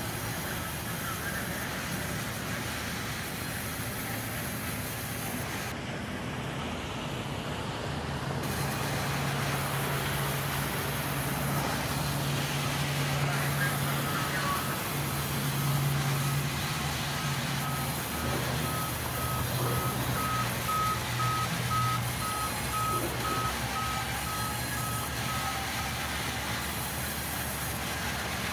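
Sawmill band saw running and cutting through a thick wooden slab: steady machine noise with a low hum that grows louder through the middle of the cut. A reversing alarm beeps steadily over it from about halfway, for roughly ten seconds.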